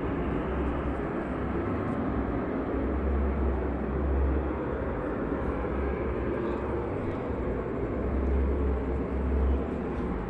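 Steady rushing noise from a nearby factory, heard at a distance, with uneven low gusts of wind buffeting the microphone. It is the strange noise the household blames on the factory having developed a fault.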